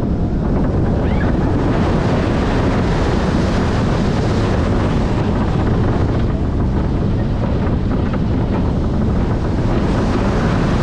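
Loud, steady wind rushing and buffeting against the microphone.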